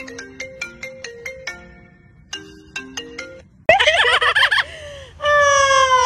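Smartphone ringtone playing a quick chiming melody of short notes, stopping briefly about two seconds in and starting again. At about 3.7 s it cuts off and an Amazon parrot gives a loud harsh call, then a long falling whistle-like call.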